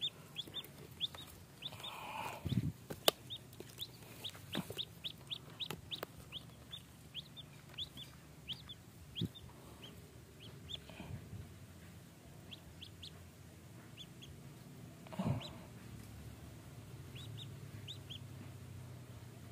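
A domestic duckling peeping over and over in short high cheeps while it is held in the hand, the cheeps coming thick in the first half and more spaced out later. A few sharp clicks and rustles of handling come in between.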